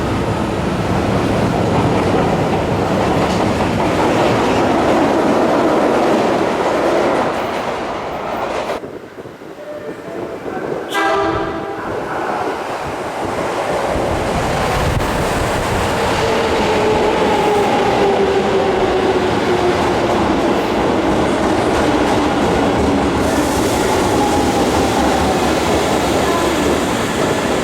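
Subway train noise in a station, then a Kintetsu 7000 series train sounding its horn once, briefly, with an unusual tone that the uploader questions as an abnormal sound. The train then runs into the platform, its motor whine falling steadily in pitch as it brakes.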